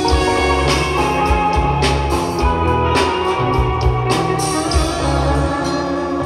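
Live rock band playing an instrumental passage through the stage PA: electric bass, drum kit with regular crashes about once a second, and electric guitar.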